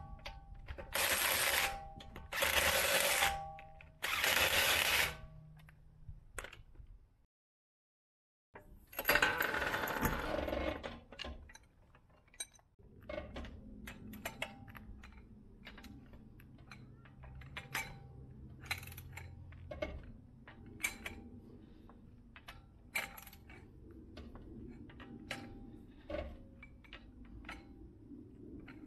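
Metal hand tools clicking and clinking irregularly against metal parts during brake caliper work. Before that come four short bursts of noise about a second each, then a longer burst.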